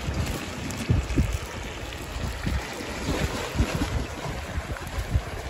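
Wind buffeting the microphone in uneven low gusts over a steady rushing hiss.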